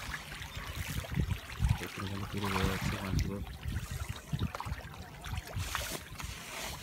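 Water splashing and trickling as pangasius catfish churn the surface of a biofloc tank while feeding, with many short low splashes.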